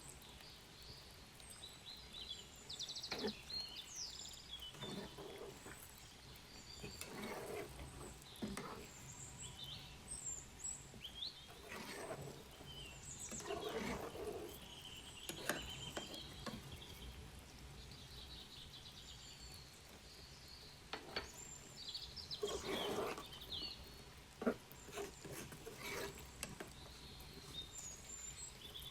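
Small birds chirping repeatedly, mixed with scattered sharp knocks and clatter.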